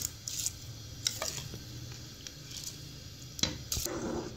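Soaked rice tipped from a bowl into a pot of boiling water and stirred, with a few short knocks and scrapes of bowl and spoon against the pot, the clearest about a second in and near the end, over a faint steady low hum.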